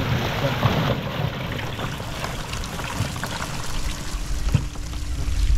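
Anchovies and seawater spilling out of a fine-mesh fishing net into a wooden fish hold: a wet, splashing pour, loudest in the first second.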